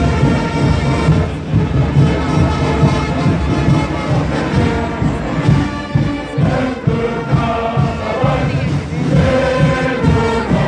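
Carnival band music with a steady drum beat, and a packed crowd of carnival-goers singing and shouting along.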